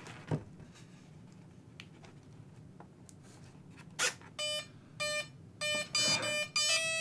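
XT60 battery connectors clicking together, then from about four seconds in a string of short electronic beeps: the RC plane's brushless-motor speed controllers playing their power-up tones as the batteries connect.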